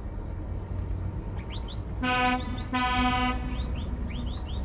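Truck air horn sounding two blasts, about two and three seconds in, over the low rumble of heavy truck engines. Short high rising chirps sound several times around the blasts.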